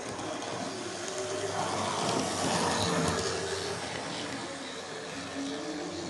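Model railway train running past on the layout track, a steady rumble of wheels and motor that swells to its loudest about two to three seconds in and then eases off.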